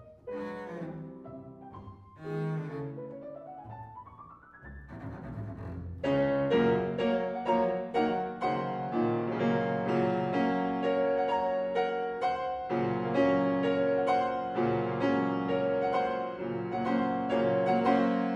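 Double bass and piano playing a classical concerto piece. The bowed bass plays held notes with a long rising slide in the first few seconds. From about six seconds in, the piano takes over with loud struck chords while the bass rests.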